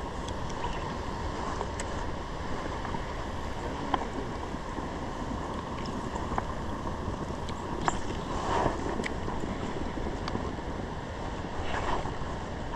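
Steady rush of flowing water in a shallow salmon stream, with a few brief clicks over it.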